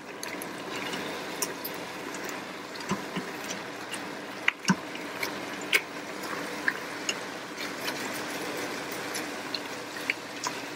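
Broth simmering around browned chicken pieces in an Instant Pot's stainless steel inner pot on the sauté setting, a steady liquid sizzle. Over it come scattered clicks and scrapes of a wooden spoon deglazing, working the browned bits off the bottom of the pot.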